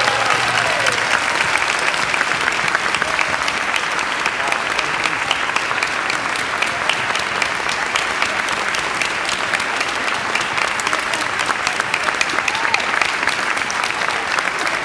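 Large audience applauding, a dense and steady clapping, with a few voices calling out over it near the start and again near the end.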